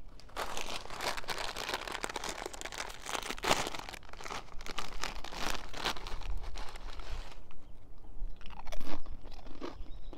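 Dense crunching and crackling close to the microphone for about seven seconds, thinning to a few scattered crunches near the end.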